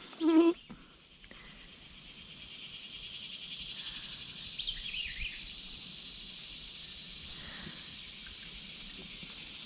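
A steady, high-pitched chorus of summer insects buzzing, swelling slightly over the first few seconds. A brief loud pitched sound with a wavering tone sits right at the start, and a few short chirps come about five seconds in.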